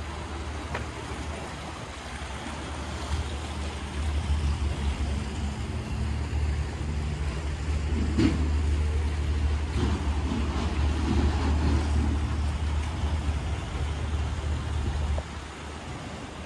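Steady low rumble with a faint hum above it, dropping away suddenly near the end; a faint tick about halfway through.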